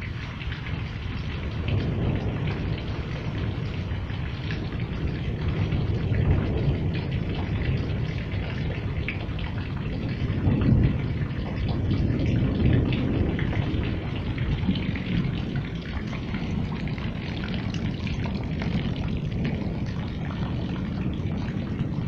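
Steady rain falling during a thunderstorm, with low thunder rumbling in and out, loudest about halfway through.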